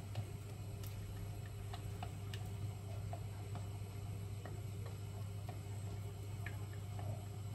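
Metal spoon scraping thick sauce out of a glass jug, making small, irregular clicks and taps against the glass, over a steady low hum.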